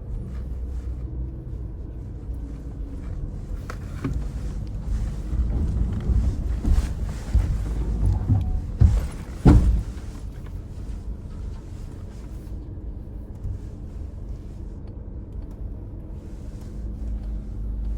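Suzuki Jimny on an off-road course, heard from inside the cabin: a steady low rumble of the vehicle moving slowly, with a string of knocks and clunks through the middle, the loudest a little past halfway.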